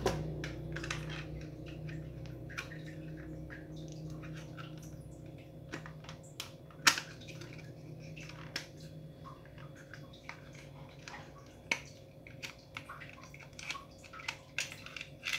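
Hands fitting the slide and parts of a P226-replica spring airsoft pistol back together: scattered light plastic clicks and taps, with one sharper click about seven seconds in and a quick run of clicks near the end, over a low steady hum.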